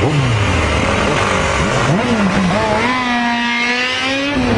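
Motorcycle engines running on the move over a steady rush of wind noise. About three seconds in, one engine revs up and holds a high, slightly rising pitch, then drops off near the end.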